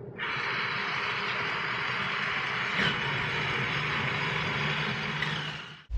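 Two battery-powered Tumble Buggy toy cars running together, their small electric motors and gears whirring steadily: one runs on two C cells, the slower one on a single C cell. The whir starts just after the cars are switched on and stops abruptly near the end.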